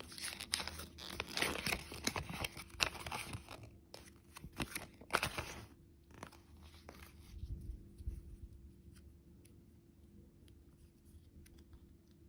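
Close-miked crunching and crackling of candy and desserts, dense for about the first six seconds, then a couple of soft thumps and only faint scattered clicks.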